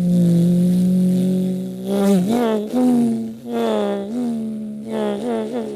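A man imitating two or three cars passing in a line with his voice: a steady humming engine drone that swells and bends in pitch several times, like one car after another going by.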